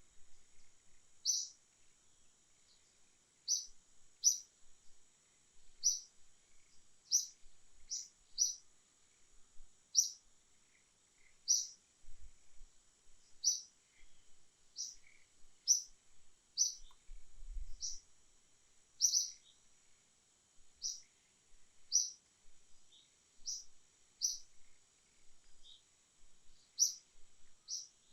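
A bird repeating a short, high chirp about once a second, irregularly and sometimes twice in quick succession, over a faint steady high-pitched hiss.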